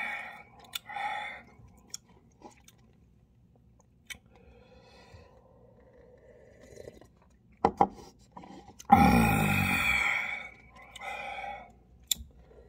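Mouth sounds of a man eating and drinking from a cup of instant ramen: quiet sipping and swallowing for several seconds, a couple of sharp clicks about halfway, then a loud voiced exhale lasting about a second and a half, with a shorter one after it.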